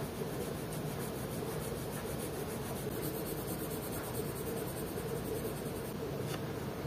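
Graphite pencil strokes scratching across vellum paper as the shading is worked in, over a steady background hiss and hum.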